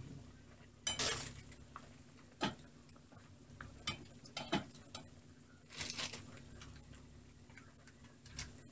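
A long-handled spoon clinking and scraping against the inside of a stainless steel pot of boiled corn as seasoning is lifted out of the cooking water: a handful of separate clinks, the loudest about a second in.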